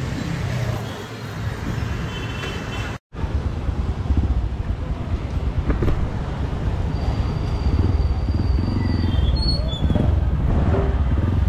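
Hero Impulse motorcycle's single-cylinder engine running on the road with traffic noise around it. A brief edit dropout comes about three seconds in, after which the low engine rumble is louder and steadier.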